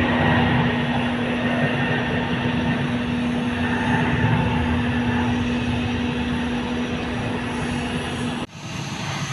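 Airport apron noise: a steady roar of jet engines with a constant low droning hum. It cuts off abruptly about eight and a half seconds in, giving way to quieter background rumble.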